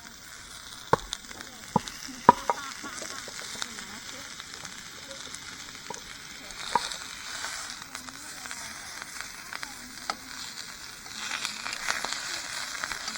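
A steady sizzling hiss with a few sharp clicks and taps, a cluster in the first couple of seconds and another about seven seconds in; it grows a little louder near the end.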